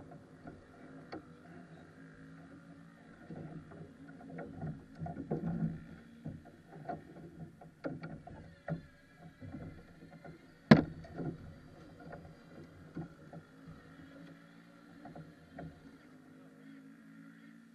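Steady engine drone of go-karts running at a distance, with scattered knocks and clicks close by and one sharp knock about eleven seconds in.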